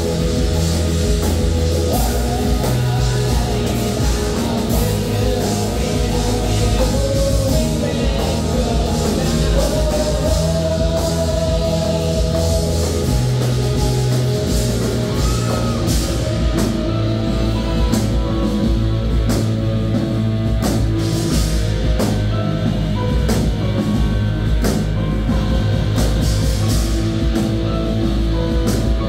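Live rock band playing loud and steady: electric guitars, a Roland Jupiter synthesizer and a drum kit, with long held notes and a melodic lead line over the drums.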